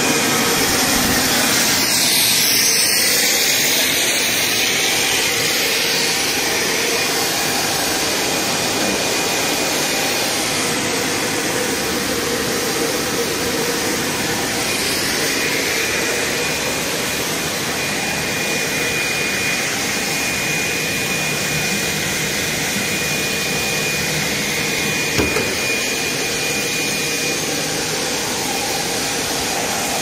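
EVA spiral hose extrusion line running: a loud, steady rushing drone of motors and air blowers, with a faint steady whistle through the middle and a single short knock near the end.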